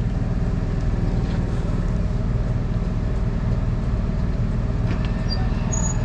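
A steady low motor hum with several held tones, unchanging throughout.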